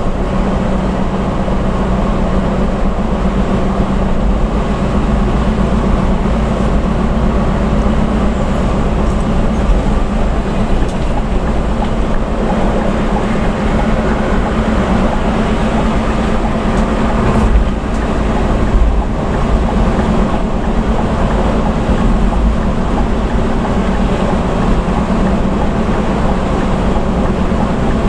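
Bus engine running steadily at cruising speed with a low drone, mixed with tyre and road noise, heard from inside the cabin. Two brief knocks about a second apart come a little past the middle.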